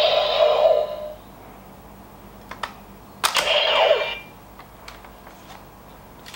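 DX Decadriver toy belt playing its electronic sound effects: a loud electronic sound that dies away within the first second, a few sharp plastic clicks, then another electronic effect with a falling sweep about three seconds in as the buckle is turned for the next card.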